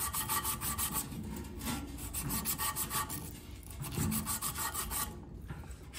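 Sandpaper rubbed quickly back and forth around a rusty blower-motor shaft, a rasping scrape at several strokes a second, cleaning the rust off the shaft; the strokes stop about five seconds in.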